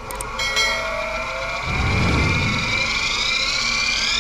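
Belt-driven CNC router spindle, powered by an AC servo motor, speeding up as its speed potentiometer is turned: a whine climbing steadily in pitch. A few sharp clicks right at the start.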